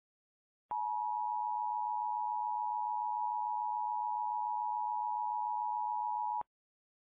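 Emergency alert attention tone: a single steady, unwavering tone just under 1 kHz that switches on abruptly about a second in and cuts off suddenly about six seconds later. It is the alarm signal that announces a broadcast tornado emergency warning.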